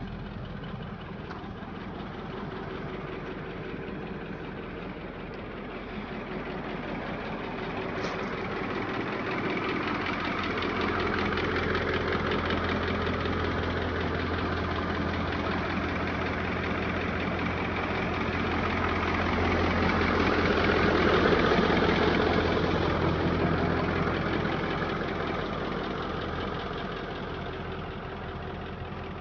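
Caterpillar 3208 V8 diesel engine of a 1948 Gillig coach idling steadily. It grows louder about two-thirds of the way through, then eases a little.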